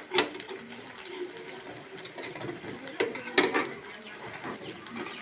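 Metal slotted spoon knocking and scraping against a frying pan while turning malpua frying in oil, with the hiss of the frying oil underneath. A few sharp knocks, one near the start and two about three seconds in.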